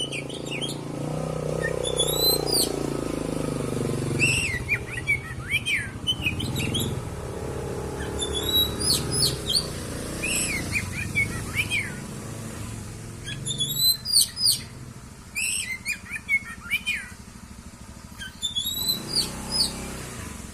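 Oriental magpie-robin (kacer) singing in bouts of quick, sharply sweeping whistled notes with short pauses between phrases, over a steady low rumble.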